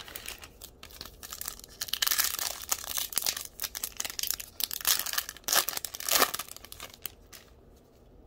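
A trading card pack's plastic wrapper being torn open and crinkled by hand, a dense crackling that dies down near the end.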